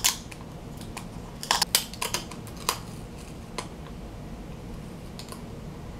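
Scattered sharp plastic clicks and taps as a loose setting powder jar is handled and its lid opened a little. A cluster of clicks comes in the first three seconds, then a few single ticks spaced apart.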